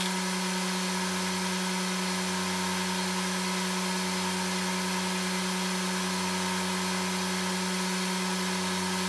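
Akafusion Akatherm CB315-U electrofusion welder humming steadily while it delivers a weld cycle into a 20-ohm load resistor, a normal, trouble-free weld. It is played fast, which raises the pitch of the hum.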